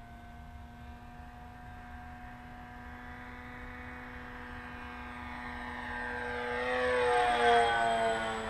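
Skywalker 1880 radio-controlled plane's electric motor and propeller flying a low pass: a steady whine that grows louder as it approaches, then drops in pitch as it goes by overhead about seven seconds in.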